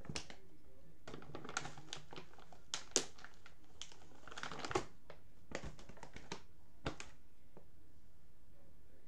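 Irregular light clicks and short rustles of small objects being handled close to the microphone, about a dozen over seven seconds, with two sharper clicks standing out in the middle, then stopping.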